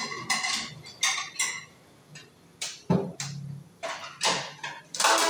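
Kitchen clatter of dishes being handled: an irregular string of knocks and clinks, some with a short ringing tail, as a plate is taken out.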